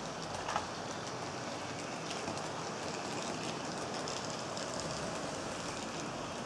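Several HO-scale model trains running on metal track: a steady rolling rush of small wheels and motors, with light scattered clicks and one sharper click about half a second in.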